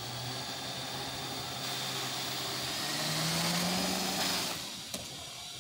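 Small electric RC helicopter spinning up on the ground: the brushless motor whines and the rotors whir, rising in pitch and getting louder about three seconds in, then winding down near the end. A single sharp click comes just before the end.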